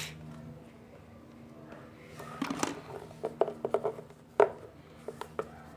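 A string of light clicks and knocks from small objects being handled, starting about two seconds in, with the sharpest knock near the end.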